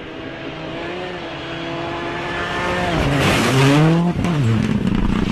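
Rally car engine at high revs on a gravel road, growing louder as it approaches. About three seconds in it passes close by with a hiss of spraying gravel and a drop in engine pitch, then the revs climb again as it drives away.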